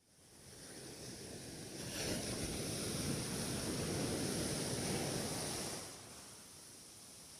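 Waves washing on the shore, swelling about two seconds in and easing off again near six seconds.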